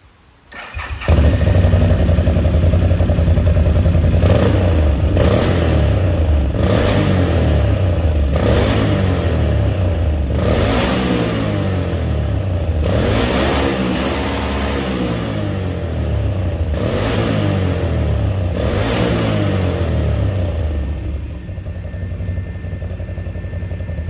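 Can-Am Outlander 800R LTD's Rotax V-twin engine on its stock exhaust, starting about a second in and then revved over and over in short rises and falls of pitch, settling to a steadier idle near the end. The sound echoes off the concrete walls of an underpass.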